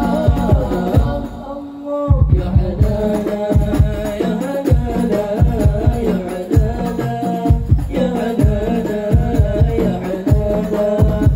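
Arabic devotional syair sung by voices over a steady beat of hand drums and percussion. The drums drop out briefly about two seconds in.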